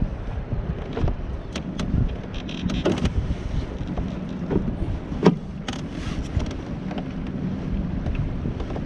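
Wind buffeting the microphone out on open water, a steady low rumble, with a few scattered knocks and clicks. The sharpest knock comes about five seconds in.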